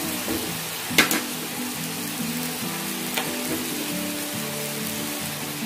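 Shrimp sizzling in hot oil in a wok, a steady hiss, with a sharp knock about a second in and a lighter one a little after three seconds, over background music.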